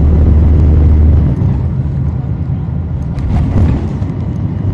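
Cummins ISL9 diesel engine of a NABI 40-foot suburban transit bus, heard inside the cabin at the rear, running under load with a deep drone that eases off a little over a second in, then carries on lower and rougher.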